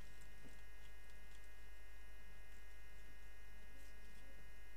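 Steady low electrical hum with a few faint steady high tones, and no distinct event.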